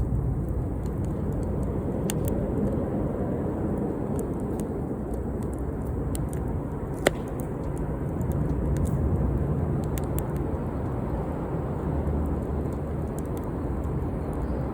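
Campfire burning: a steady low rushing noise with scattered crackles and one sharp pop about seven seconds in.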